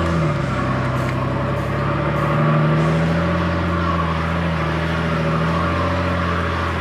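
Off-road 4x4 truck's engine running at low revs as it crawls through a deep rut, its pitch dipping at the start and climbing again about two seconds in.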